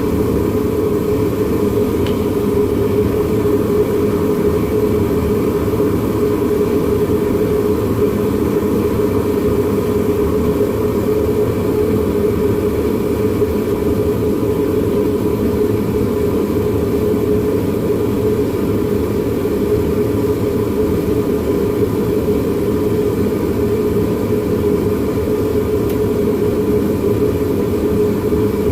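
Forge running steadily with an even, unbroken noise and a steady hum, as a knife blade is heated to non-magnetic before an oil quench.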